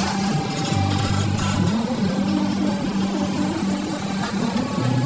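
SANY hydraulic excavator's diesel engine running under working load as the machine swings and loads sand, its steady hum stepping up and down in pitch.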